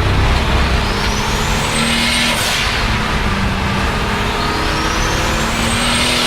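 Turbocharged 3.8-litre M30 straight-six of a 600 hp BMW 535i E34 pulling hard, its turbo whistle climbing in pitch as the revs rise. About two and a half seconds in, the throttle closes with a short blow-off valve hiss. The engine pulls again and the whistle climbs a second time, holding high near the end.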